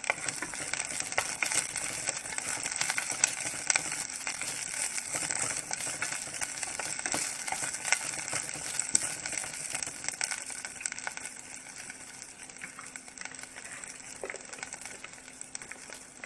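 Chopped scallions sizzling in hot oil in a pot, with many small crackles, while a wooden spatula stirs them. The sizzle grows quieter in the last few seconds.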